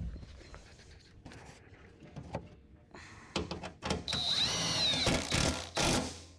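Milwaukee cordless impact wrench tightening a skid plate mounting bolt: a short burst about three seconds in, then a longer run of about two seconds with a high motor whine, cutting off near the end. A few light clicks come before it.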